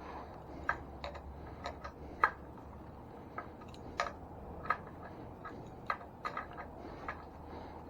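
Scattered sharp clicks and light taps at irregular intervals, the sound of hand tools working on the e-bike's front wheel and axle nuts; the loudest click comes about two seconds in.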